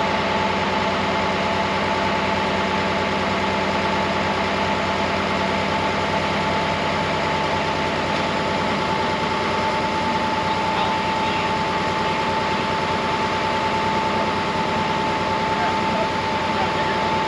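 Tractor engine idling steadily, with a constant whine over the engine note.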